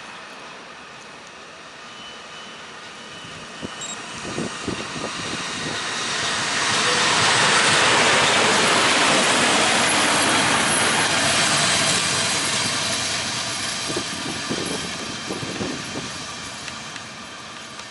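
DB Class 151 electric locomotive running light past at speed, swelling to its loudest about eight seconds in as it passes and then fading: a steady rush of its blowers and traction motors, with wheels knocking over rail joints and points as it approaches and again as it moves away.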